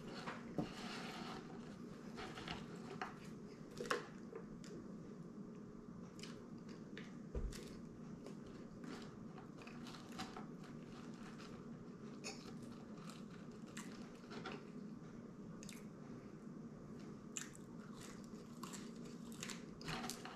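A man eating French fries dipped in ketchup, close to the microphone: quiet chewing and biting with many small mouth clicks and crunches, over a faint steady room hum. A soft low thump comes about seven seconds in.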